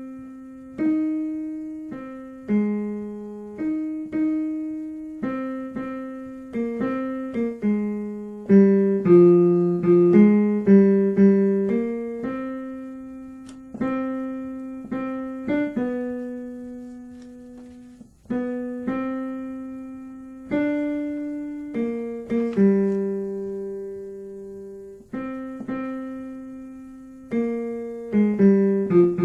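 Piano playing the tenor line of a choral piece as a rehearsal part: a mostly single-note melody, each note struck and left to die away, with the occasional two notes sounding together.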